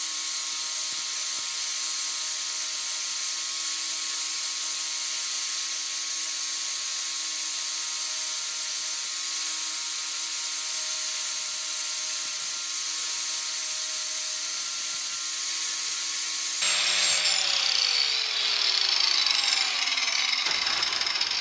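Handheld angle grinder running steadily with its disc ground against the steel edge of a rebar hatchet, a steady motor hum under a harsh grinding hiss. About four seconds from the end the sound gets a little louder and its pitch falls away as the disc comes off the work and spins down.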